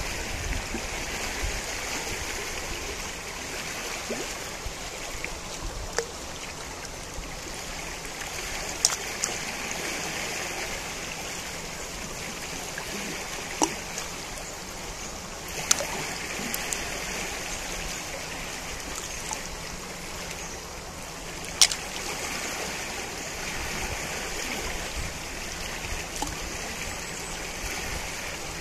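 The Najerilla river flowing: a steady rush of running water, with a few brief sharp clicks scattered through, the loudest about three-quarters of the way in.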